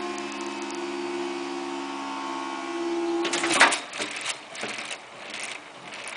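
Level crossing barrier drive humming steadily as the booms rise, cutting off about three seconds in when the barriers reach the raised position. A few knocks and rustles follow.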